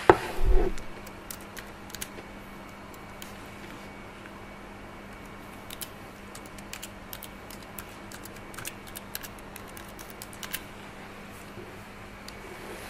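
Computer keyboard being typed on, irregular runs of light key clicks as a name is entered, over a faint steady hum. A low thump comes about half a second in.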